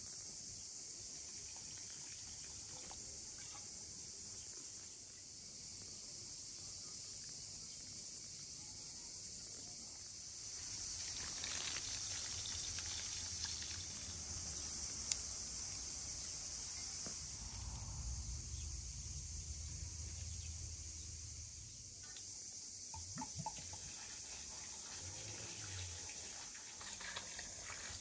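Steady high-pitched drone of insects, growing louder for a few seconds in the middle, with a few soft knocks. Near the end, water starts to pour from a clay jug into a metal bowl of herbs.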